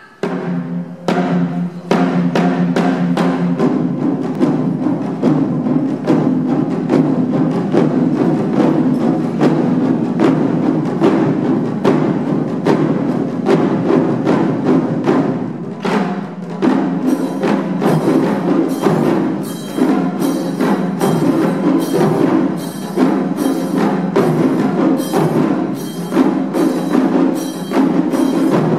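Taiko ensemble drumming on barrel-shaped nagado-daiko: a fast, dense run of strikes. About halfway through, a steady, higher-pitched ringing strike joins in on a regular beat.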